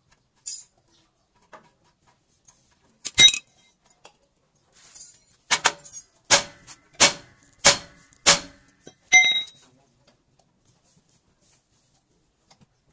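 Metal striking metal: one sharp clink about three seconds in, then a run of six more clinks spaced well under a second apart, several with a short ringing tone.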